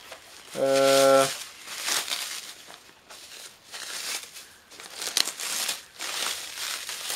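Plastic wrapping and foil crinkling and rustling as a wrapped item is handled by hand, with scattered crackles and a sharp click about five seconds in. Just under a second in, a man's voice gives a short held hum at one pitch, the loudest sound.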